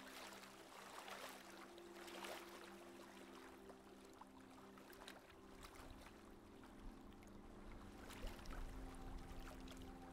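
Faint rush of sea water washing along a monohull sailboat's hull as it runs downwind under its jib, swelling in a few soft surges.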